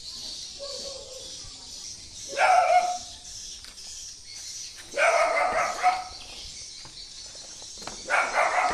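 An animal calling three times, each call lasting about a second with a clear pitch, a few seconds apart, over a steady high insect buzz.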